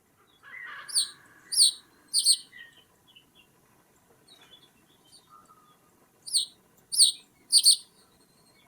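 A bird calling: two bursts of three sharp, high calls, each call falling in pitch, the second burst near the end.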